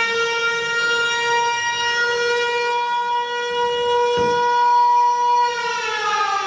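Air-raid siren holding one steady tone, then winding down in a slow falling glide from about five and a half seconds in. A single short knock about four seconds in.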